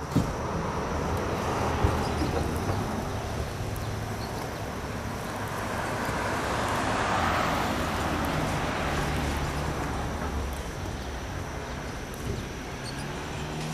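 RipStik caster board's wheels rolling over asphalt: a steady rough rolling noise that swells and fades as the board passes. Two sharp knocks sound within the first two seconds.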